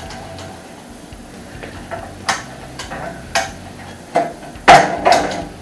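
A series of sharp metallic knocks and clinks, about six of them, from metal hardware being handled and knocked against the steel rack during assembly; the loudest two come close together near the end.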